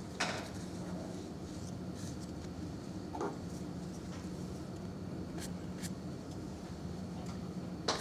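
Steady low room hum with a few small clicks and knocks from art materials being handled, the sharpest just before the end.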